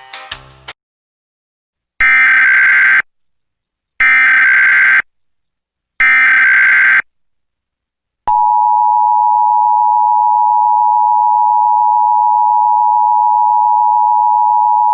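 Emergency Alert System header: three one-second bursts of SAME data tones, each a warbling chirr about a second apart. Then from about eight seconds in, the steady two-tone EAS attention signal (853 and 960 Hz sounding together) begins and holds. A short bit of music ends in the first second.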